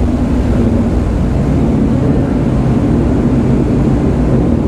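Steady low engine drone with a constant hum on the enclosed vehicle deck of a RoRo ferry: the ship's engines and the running motorcycle engine together, with no revving.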